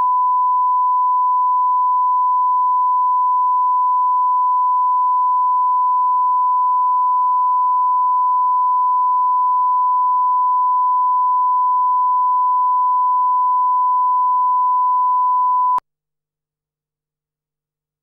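Broadcast line-up reference tone: a single steady 1 kHz beep held at one level, cutting off suddenly near the end.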